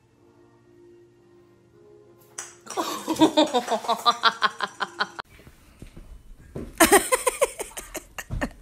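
Soft background music, then a baby's voice in two loud bursts of laughing and squealing: the first lasts about two and a half seconds, the second is short and comes near the end.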